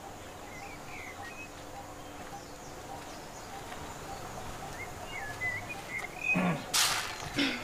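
Birds chirping here and there in short calls over a steady rural outdoor background. Near the end come a couple of brief, louder rustling noises.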